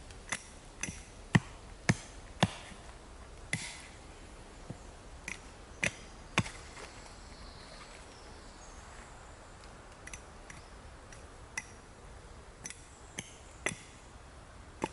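Axe striking a wooden stake: about fifteen sharp knocks in short runs roughly half a second apart, with gaps between the runs. The hardest blows come in the first few seconds.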